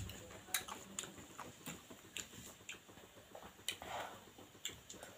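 A person chewing rice with the mouth open: faint, irregular wet lip smacks and mouth clicks, a few a second.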